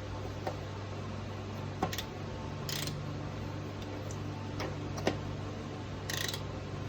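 Torque wrench ratcheting on a wheel's lug nuts: scattered sharp ticks and clicks, with a couple of short scraping sounds, over a steady low hum.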